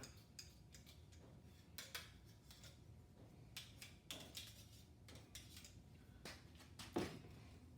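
Near-quiet workshop handling noise: faint scattered clicks and light taps as a metal piston ring compressor is handled and lubricated with automatic transmission fluid, with one sharper click near the end.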